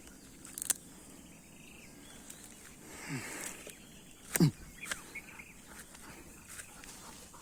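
Quiet outdoor ambience with a faint steady insect hum. A sharp click comes about a second in, and two short low sounds drop in pitch in the middle; the second is the loudest.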